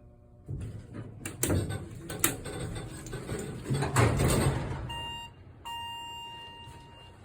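Elevator doors and car clunking and rattling with several sharp knocks, then an electronic beep sounding twice, a short beep followed by a longer one of about a second and a half.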